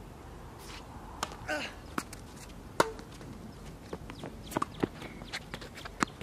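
Tennis ball being struck by rackets and bouncing on a hard court during a rally: a string of sharp pops several times over a few seconds, the loudest about three seconds in.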